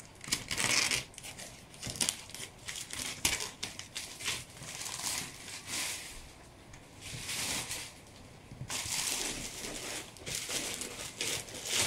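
Clear plastic wrapping being torn and pulled off a cardboard box, crinkling and rustling in irregular bursts.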